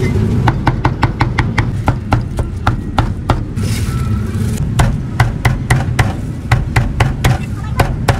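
Meat cleaver chopping cooked meat on a thick round wooden chopping block: sharp, quick chops about four a second, a pause about three and a half seconds in, then another run of chops.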